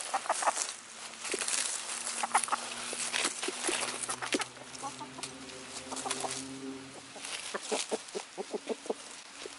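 A small flock of free-ranging chickens clucking softly as they forage, with a long low drawn-out note in the middle and a quick run of short clucks near the end, over crackling dry leaves being scratched and pecked.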